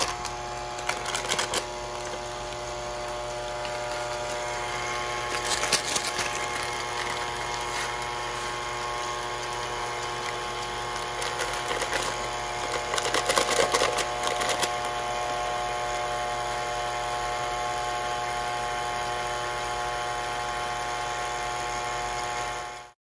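KitchenAid Classic stand mixer running steadily with its wire whisk, beating instant pudding mix into milk in a steel bowl. Three times, about a second in, around six seconds and again around thirteen seconds, paper pudding packets crinkle over the bowl as the powder is poured in.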